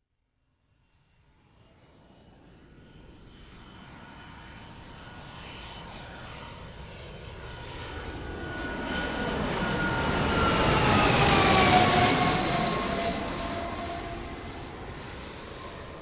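Airplane flying over: its engine sound grows out of silence, is loudest about eleven seconds in, then fades. Its whining tones drop in pitch as it passes.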